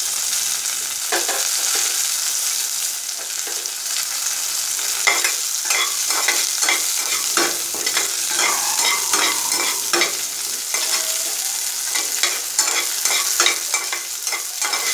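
Chopped onion sizzling in hot oil in a kadai, with a spatula stirring and scraping it round the pan; the stirring strokes come thicker from about five seconds in.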